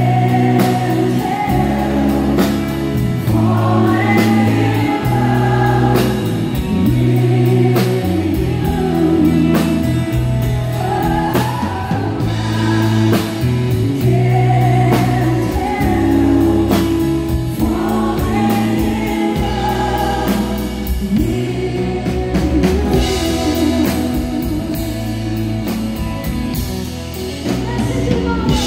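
Live country band playing a slow song: a woman sings lead over acoustic and electric guitars, bass guitar and drums.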